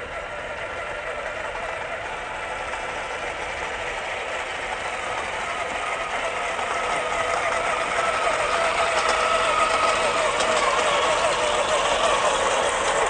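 Electric motor and gears of a small-scale RC truck whining steadily as it drives, growing louder over the second half, with a few small ticks from about seven seconds in.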